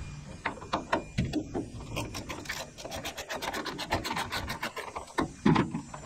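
Socket ratchet clicking in quick runs as the Torx T30 bolt holding an old rubber tailgate bumper is loosened and backed out. A single thump near the end.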